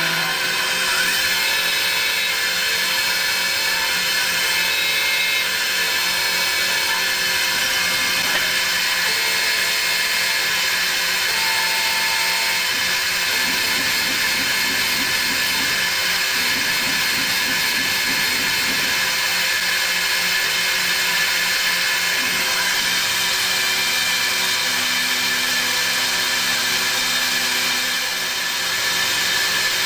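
CNC lathe with live milling tools cutting a spinning brass part under coolant spray: a steady machining whir and spray hiss with several steady high tones. Lower hums come and go partway through, as the tools change speed.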